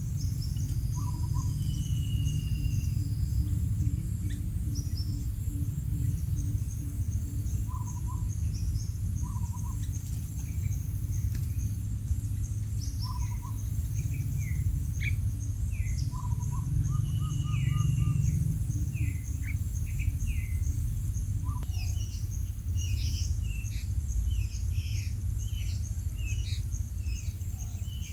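Birds chirping and calling in short notes, busier in the second half, over a steady high insect trill and a steady low rumble.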